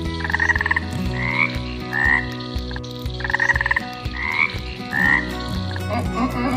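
Frog calling: a pulsed, rattling croak followed by two short rising chirps, with the whole pattern given twice.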